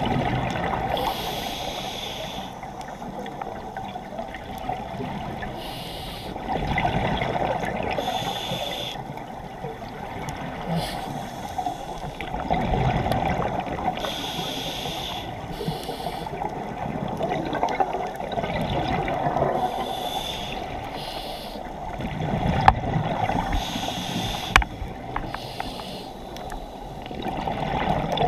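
Scuba diver breathing through a regulator underwater: a hissing inhale and a bubbling exhale, repeating every few seconds over a steady underwater rush.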